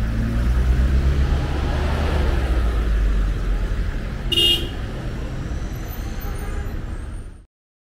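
City street traffic with a steady low engine rumble from passing vehicles, and one short car horn toot about four and a half seconds in. The sound cuts off abruptly near the end.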